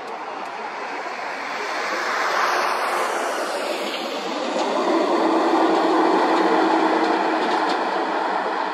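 Boeing 787 Dreamliner's jet engines on landing approach: a steady rushing noise that grows louder as the airliner closes in, with a low hum joining about halfway through.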